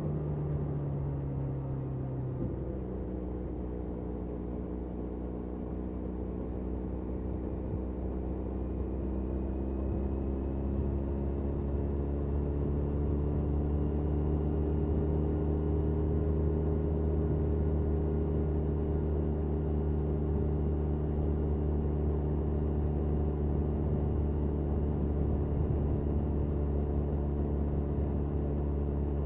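Benelli 502C's parallel-twin engine through its stock exhaust, heard from the rider's seat on the move. The engine note falls over the first two seconds and changes abruptly soon after, then climbs slowly as the bike gathers speed and holds steady at cruising pace for the rest.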